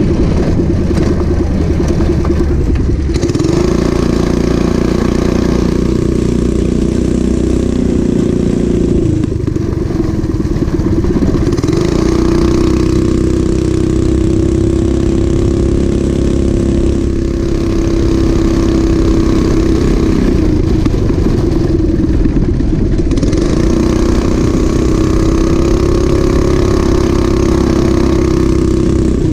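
Small single-cylinder engine of a Coleman CT200U-EX mini bike running under load as it is ridden. The revs climb and hold three times, about three, twelve and twenty-three seconds in, and fall back in between.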